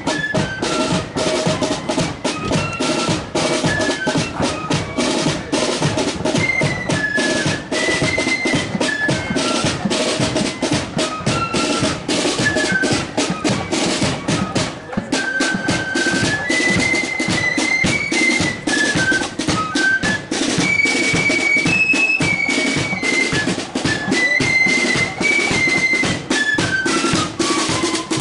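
Marching flute band playing a tune: flutes carry a high melody that steps up and down over steady snare drumming.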